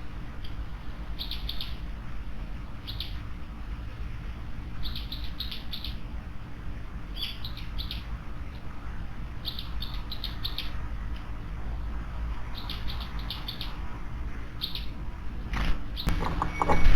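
Small garden songbirds giving short, high chirps in little clusters of two to four notes every second or two, over a steady low background rumble. Near the end a louder knocking and rumble sets in.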